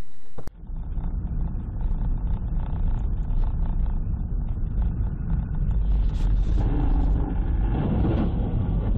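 Car driving: a steady low rumble of engine and road noise, starting abruptly about half a second in.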